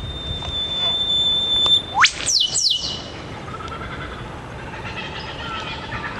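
Eastern whipbirds calling as a duet: a long, steady high whistle ending about two seconds in with the whip-crack, a very fast upward sweep, answered at once by two quick descending notes, the female's two-note reply.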